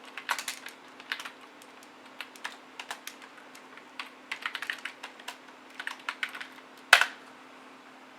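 Typing on a computer keyboard in short bursts of key clicks, with one louder key strike about seven seconds in, over a steady low hum.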